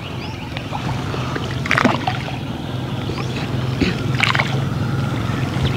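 Wooden oars of a small rowboat stroking through canal water, a splash and swirl twice, about two and a half seconds apart, over a steady low hum.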